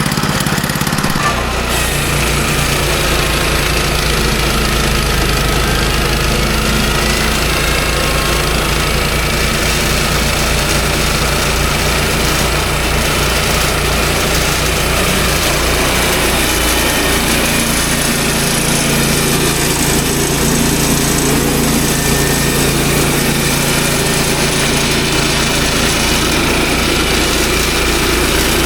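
Woodland Mills HM122 portable bandsaw mill running, its small gasoline engine loud and steady as the mill works through a log; the engine note shifts about a second in, then holds.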